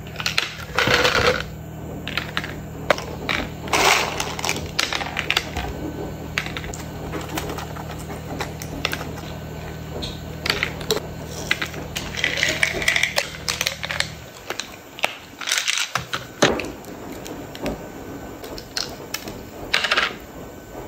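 Kitchen clatter during cooking prep: a knife, bowls and utensils clicking and knocking many times. Under it runs a low steady hum that stops about fourteen seconds in.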